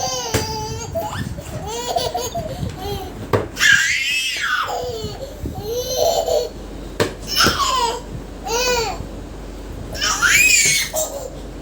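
Baby laughing hysterically in repeated bursts of high, squealing laughs, with a few sharp knocks between them.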